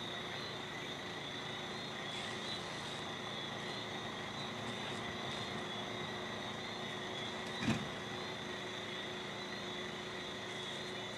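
A fire engine's pump running at a steady pitch under the hiss of a fire hose spraying water, with a single brief thump about three-quarters of the way through.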